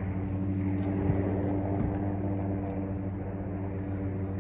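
A boat's outboard motor running steadily at low speed, with two short knocks about a second in and near the middle.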